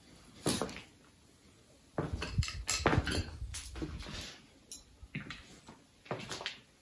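Irregular knocks and clattering of hard objects, with a single knock about half a second in and a denser run of clatter from about two to four and a half seconds in.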